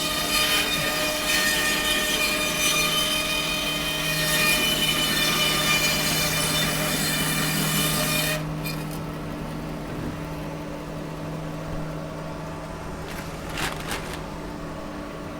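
Power saw cutting through a block of wood for about eight seconds, then the cut ends suddenly and the saw runs on with a steady hum. A few light knocks follow near the end.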